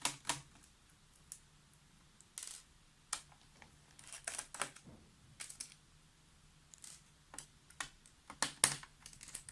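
Small screwdriver undoing the screws that hold the battery of an Asus K555LN laptop: scattered light clicks, scrapes and taps on the plastic case, with the sharpest ones right at the start and again near the end.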